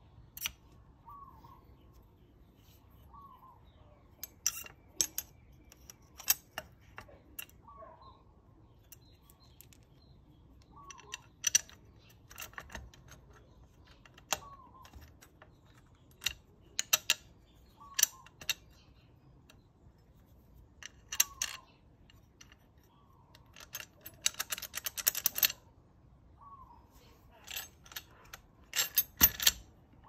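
Sharp metal clinks and knocks from a Vespa LX front shock absorber, its mounting plate and the fork being handled and fitted together, with a quick run of rapid clicking about three-quarters of the way through and another just before the end.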